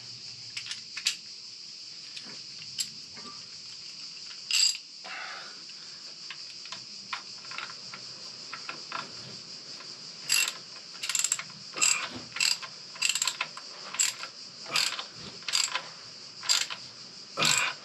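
Ratchet wrench clicking in short repeated strokes as a plug is tightened on the motorcycle's primary case. A few scattered clicks come first, then a run of about a dozen strokes in quick succession in the second half.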